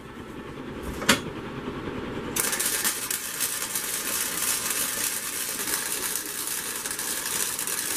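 Wire-feed welding arc crackling and sputtering as a seam is laid on thin sheet steel. A brief strike about a second in, then a steady bead from a little over two seconds in.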